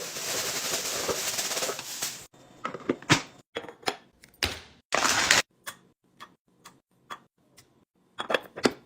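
Handling of items while restocking a fridge. About two seconds of rustling, then a string of sharp clicks and taps as things are set down and handled, with one short rustle around the middle and a quick cluster of clicks near the end.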